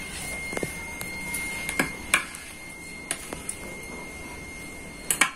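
Scattered light taps and knocks from hands handling a potted golden pothos and its stone pot, over a faint steady high whine. Near the end a fast, even run of clicks begins.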